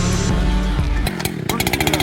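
Background music, giving way about a second in to a chainsaw engine running with a fast, even pulsing.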